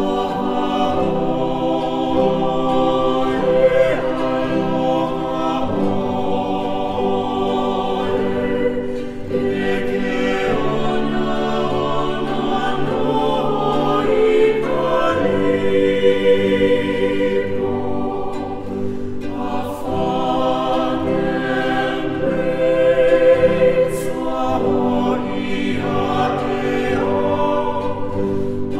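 Background music: a choir singing long held chords that change every few seconds.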